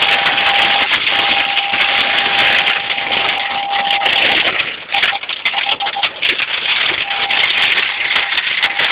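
Heavy storm rain pelting a car's roof and windows: a dense, loud hiss with many sharp hits, easing briefly about five seconds in. A steady high tone sounds through it, breaking off now and then.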